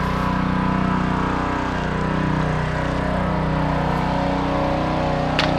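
3000 psi, 2.5 gpm gas pressure washer running steadily, engine at a constant speed with the spray hissing over it; a single sharp click near the end.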